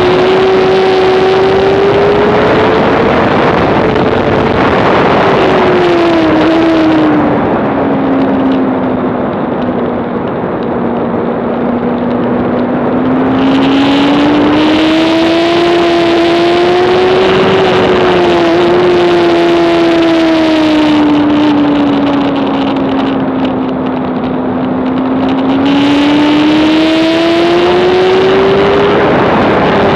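Onboard sound of a 2007 Honda CBR600RR's inline-four engine running hard at race pace, its pitch climbing and falling slowly with throttle and speed. The pitch drops sharply about five seconds in and again near the end, as the rider backs off.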